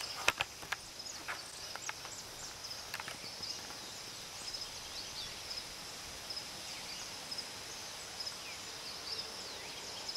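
Early-morning outdoor ambience of insects and birds: a steady, evenly repeating high insect chirp with many short bird chirps scattered over it. A few sharp clicks come in the first second.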